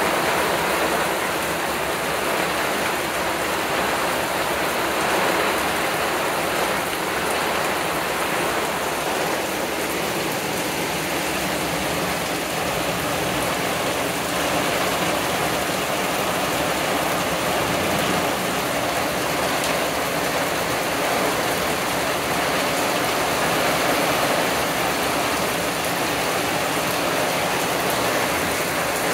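Heavy thunderstorm rain pouring down steadily, an even hiss of downpour through the trees.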